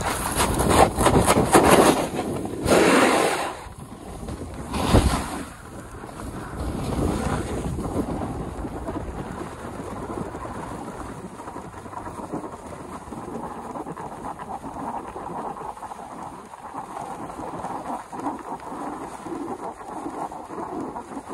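Wind buffeting the microphone of a camera carried by a skier heading downhill, in heavy gusts for the first five seconds or so, then settling into a steadier rush of skis running over powder snow.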